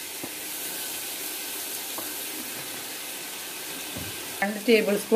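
Chopped vegetables frying in a pan on high flame: a steady sizzle with a few faint taps.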